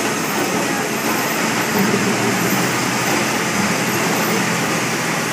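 Studio Tour tram running steadily along, an even, unbroken rumble of the moving vehicle.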